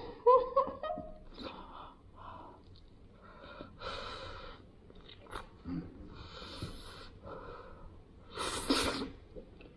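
A woman breathing heavily through her mouth and nose while eating chicken with her hands, a few short rising hums in the first second, then a series of breaths, the loudest near the end.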